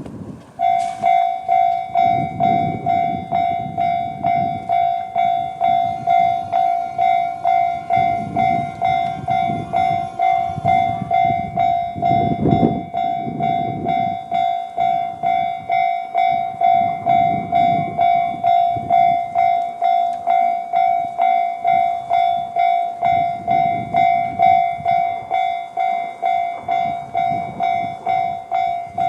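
Japanese level-crossing warning in the JR standard tone, starting about half a second in: an electronic bell striking about twice a second. Low gusts of wind buffet the microphone underneath.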